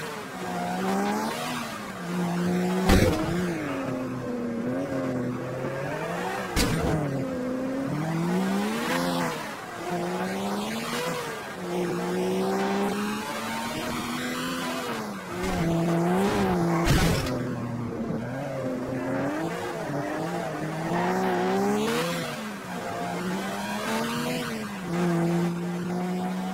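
Race car engine sound from a racing video game, its pitch climbing and dropping back again and again as the car accelerates and eases off. A few sharp knocks break in, the loudest about three seconds in.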